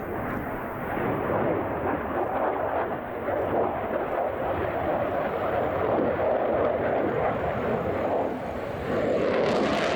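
Twin turbofan engines of a MiG-35UB fighter jet, heard as uneven jet noise that swells and fades as it manoeuvres. Near the end the sound turns harsher, with a crackling hiss on top.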